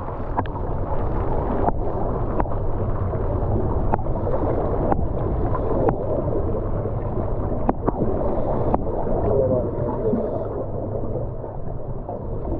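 Water rushing and gurgling along a sailing boat's hull, a steady churning noise with a few sharp clicks.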